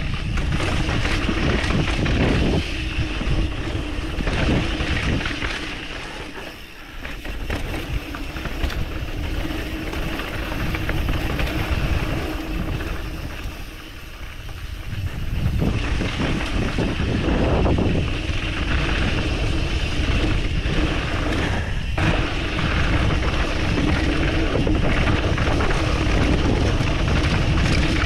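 Wind buffeting the camera microphone over the rattle and rolling noise of a mountain bike descending a dirt trail. The noise eases twice for a few seconds, then comes back up.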